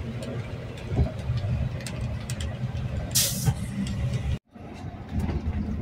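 Cabin noise of a moving double-decker coach bus: steady engine and road rumble with small rattles from the fittings, and a short hiss of compressed air from the bus's air system about three seconds in. The sound drops out for a moment near the end and then the rumble resumes.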